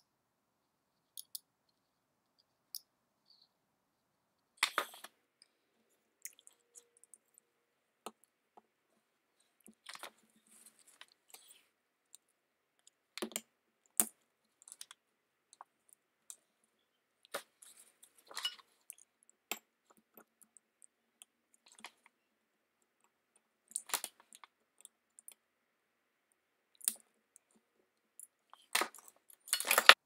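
Scattered clicks, clinks and short scrapes of small metal and plastic parts being handled by hand while the gear, shaft and freewheel of a Bafang BBS02 mid-drive motor are fitted back together, with quiet gaps between them. The loudest cluster of clicks comes near the end.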